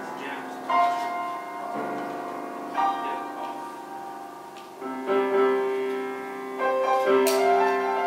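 Grand piano being played: slow sustained chords, a new one struck every second or two.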